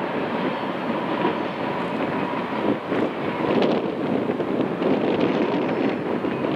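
Freight cars of a train rolling across a steel trestle: a steady rumble with scattered clicks of wheels over the rails.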